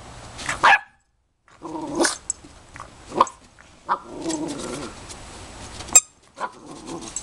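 Rottweiler puppy giving a few short barks and a low growl while playing with a plush toy, with a sharp click about six seconds in.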